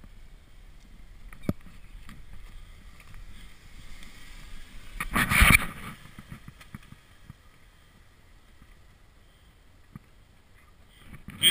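Jeep Wrangler engine working under load as it crawls over rough ground, a low steady rumble with a short, very loud burst about five seconds in.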